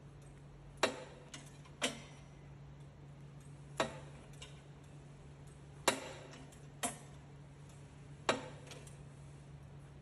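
Foot-operated SS-16 sheet-metal shrinker stretcher clacking six times at uneven intervals as its jaws close on the metal with each pedal stroke. Each clack is sharp and metallic, with a short ringing tail.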